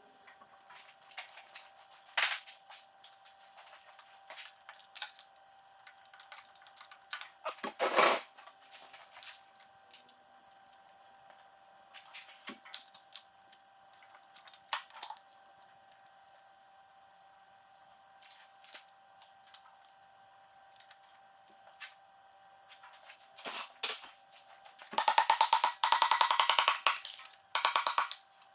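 Hand tools working on a tractor engine during a rebuild: scattered metal clicks and clinks with a louder knock about eight seconds in, then a fast run of ratchet clicks near the end. A faint steady hum sits underneath.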